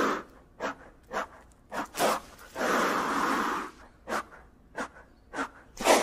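Gila monster hissing: long breathy exhales of about a second, one ending at the start, one in the middle and one beginning near the end, with short sharp puffs in between.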